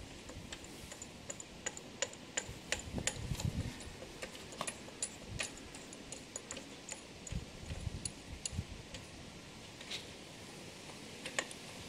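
Irregular small metallic clicks and ticks, with a few dull knocks, from the steel parts of a homemade gear-cutting attachment being handled and fitted together on a metal shaper's table.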